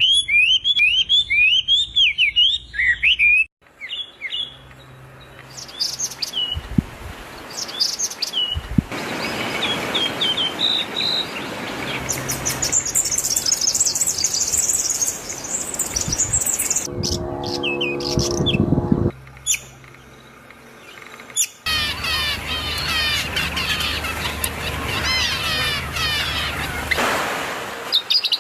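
Wild birds chirping and calling in a series of short recordings joined one after another: rapid high chirps, whistled notes and warbling trills. About two-thirds of the way through comes a lower, harsher call.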